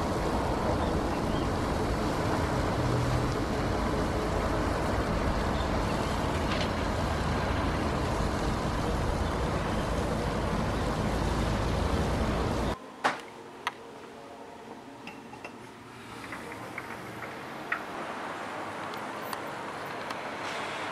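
Steady outdoor rushing noise of wind and distant road traffic. About thirteen seconds in it cuts to a quieter background of distant traffic with a few sharp clicks.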